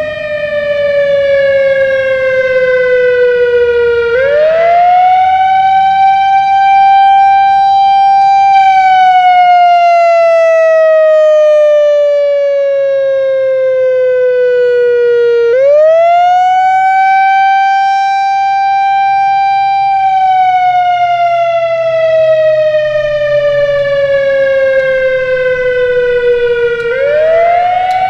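Whelen WS-3000 electronic outdoor warning siren sounding the wail tone from an analog controller. Its pitch sweeps up quickly, holds high for a few seconds, then slides slowly down. The cycle repeats, with the pitch rising again three times: about four seconds in, past halfway, and near the end.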